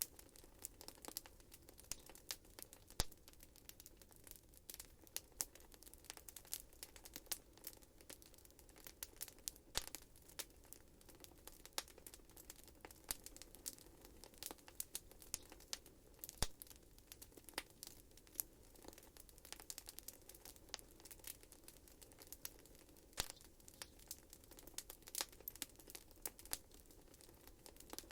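Wood fire in a fireplace crackling: frequent sharp, irregular pops and snaps over a faint, steady hiss from the flames.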